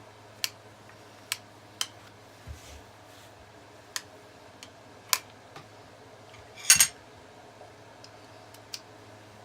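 Scattered sharp metallic clicks and taps from a screwdriver and the parts of an 1866 lever-action rifle being handled during disassembly, about one every second, with a louder double clack about two-thirds of the way through. A low steady hum sits underneath.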